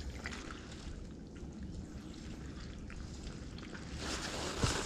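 Water lapping and trickling against a kayak hull, faint, with a few small ticks, growing louder near the end.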